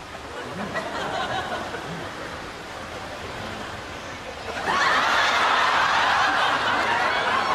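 Studio audience laughter: scattered chuckling at first, then swelling suddenly into loud, sustained laughter about two-thirds of the way through.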